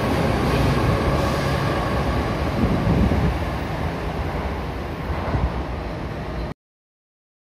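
Tokyo Metro Chiyoda Line subway train running, a steady noise of wheels on rail and car movement. It cuts off abruptly to silence about six and a half seconds in.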